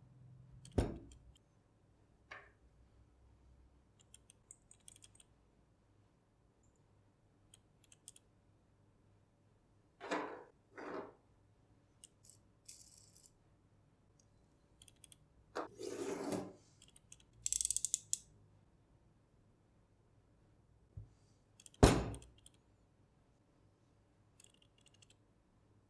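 Scattered handling sounds of a cardboard phone box and small objects on a wooden tabletop: light taps, clicks and short rustles, with a sharp knock about 22 seconds in.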